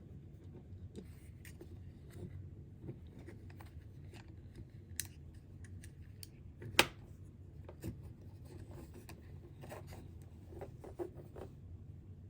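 Small plastic parts of an electric shaver being handled and fitted together during reassembly: scattered light clicks and rubbing, with one sharp click about halfway through.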